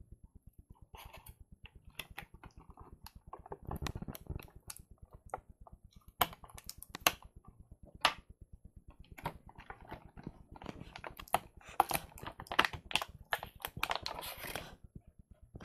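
Hands handling toys and their plastic packaging: scattered clicks and taps, growing into a denser crinkling rustle near the end.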